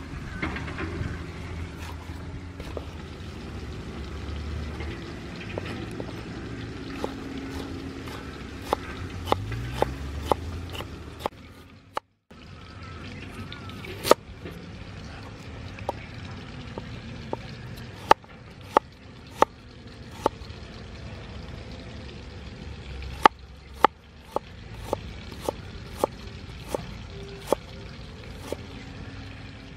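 Kitchen knife chopping on a thick wooden cutting board while slicing bell pepper and carrots: sharp, irregular knocks of the blade hitting the wood, some in quick runs. A steady low background noise runs under it, broken by a brief moment of silence about twelve seconds in.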